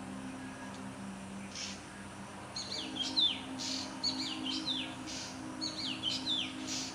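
Small bird chirping repeatedly in the background, quick high notes that slide downward, starting about two and a half seconds in, over a low steady hum.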